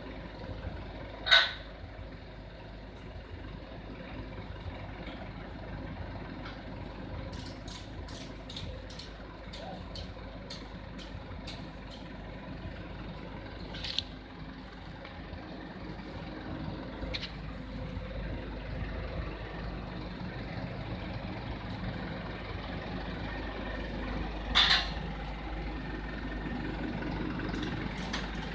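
Diesel engine of a truck or mini excavator running steadily, with a short sharp hiss about a second in and another near the end, and a run of faint quick ticks in the middle.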